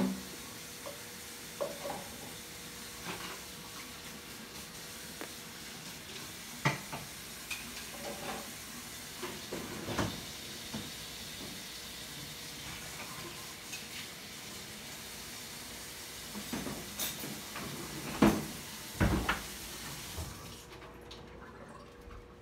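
Dishes and cutlery clinking and knocking against each other and the steel sink while being washed by hand, over a steady hiss of running tap water. The knocks come scattered, the loudest pair near the end, and then the water stops.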